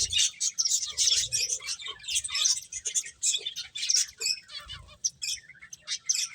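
Several pet finches chirping: many short, high chirps overlapping in quick succession, thinning out briefly a little past the middle.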